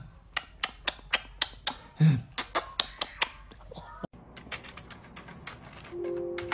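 Quick kissing smacks of lips on a small dog's face, about three a second, with a short hum from the woman about two seconds in. After a cut about four seconds in, fainter rapid clicking of laptop keys under a small dog's paws, and a steady held tone begins near the end.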